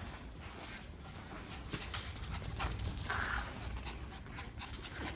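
Shih Tzu and kitten playing on a concrete floor: paws and claws clicking and scrabbling, with a brief higher-pitched sound about three seconds in.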